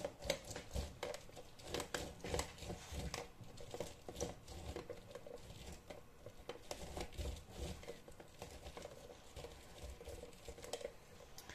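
An orange half twisted and pressed by hand on a red plastic manual citrus juicer: a run of irregular small clicks and scrapes.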